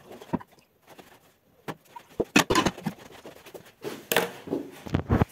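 Steel pressure cooker pot being handled at a sink while rice is washed in it: irregular knocks and clanks with splashes of water, loudest about two and a half and four seconds in.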